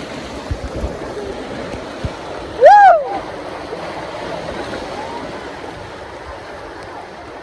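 Rushing, splashing water as a steady noise, with one short, loud yelp that rises and falls in pitch about three seconds in.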